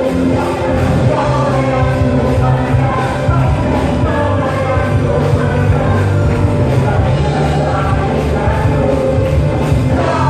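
Live worship band and choir playing an upbeat praise song: voices singing over guitars, keyboard and drums, steady and loud.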